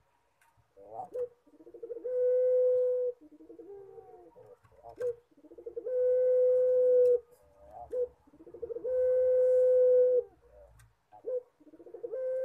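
Puter pelung, a domestic collared dove, cooing four times, about every three and a half seconds. Each coo opens with a quick stuttering run of notes and ends in a long, steady, drawn-out note, the crying-like coo this dove is kept for.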